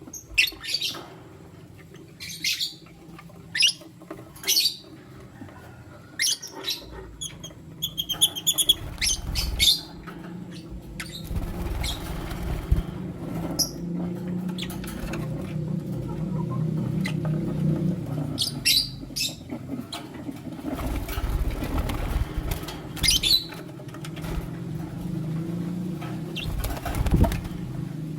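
Lutino lovebirds giving short, sharp high chirps at irregular intervals, one a clearer pitched call about eight seconds in. Under them is a low fluttering and rustling of wings that grows from about nine seconds in and swells several times.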